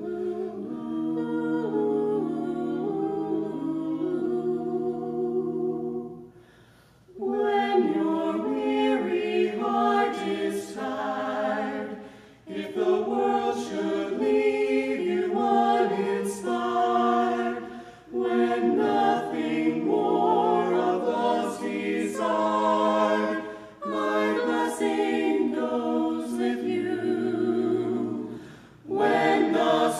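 A vocal quartet of two women and two men singing a cappella in harmony. It opens on a held chord for several seconds, breaks off briefly, then goes on in sung phrases separated by short breaths.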